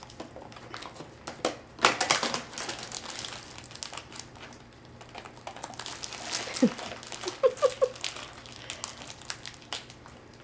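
Plastic gift wrapping crinkling and tearing in irregular crackly bursts as a German shepherd tugs it off a present with its teeth. A few brief squeaks come about three quarters of the way in.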